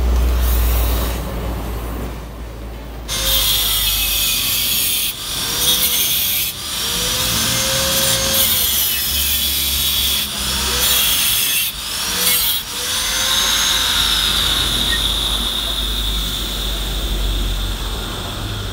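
Handheld angle grinder cutting a steel Vespa exhaust pipe, starting about three seconds in. Its high whine dips and recovers in pitch each time the disc bites into the metal, with a few brief breaks between cuts.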